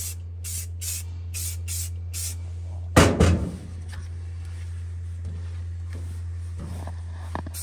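Aerosol spray-paint can fired in a quick run of short hissing bursts through a stencil, the 'short strokes' of stencilled camouflage, stopping after about two seconds. A loud thump about three seconds in, then a couple of faint knocks, over a steady low hum.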